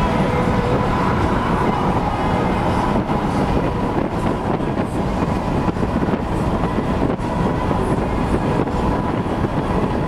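Steady road noise inside a car at highway speed: tyres rumbling on the pavement with the wind and engine, heaviest in the low range.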